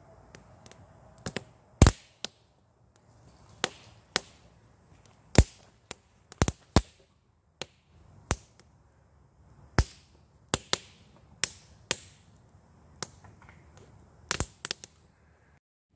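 Burning split kindling crackling, with loud, sharp pops at irregular intervals, about one a second. It cuts off abruptly just before the end.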